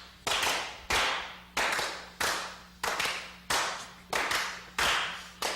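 Sharp claps in a steady beat right after a count-in, about three every two seconds, each ringing out and dying away before the next.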